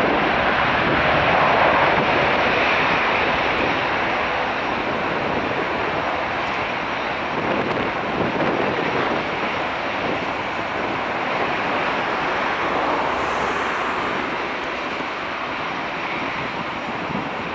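Airbus A330-243's two Rolls-Royce Trent 700 turbofans running at high power as the airliner rolls away down the runway, a steady jet rumble that slowly fades. Wind buffets the microphone.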